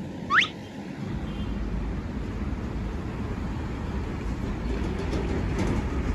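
A short whistle rising sharply in pitch near the start, then the steady low noise of a vehicle running.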